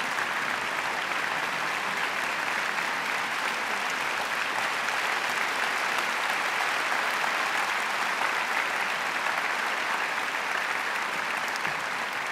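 Audience applauding steadily, a dense, even clapping that eases slightly near the end.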